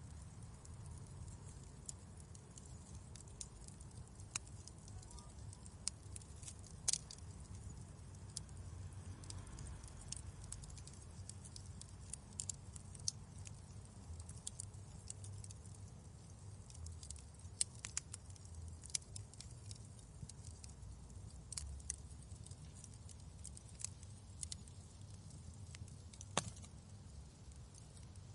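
Wood fire crackling in a fireplace: a low steady rumble of flames with irregular sharp pops and snaps, a few louder pops standing out.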